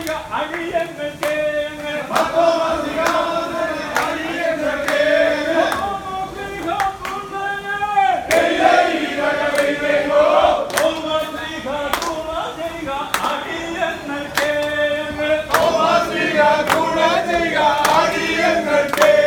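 A group of men singing a Kerala vallamkali boat song in loud chorus. Sharp percussive strikes are spread through the singing.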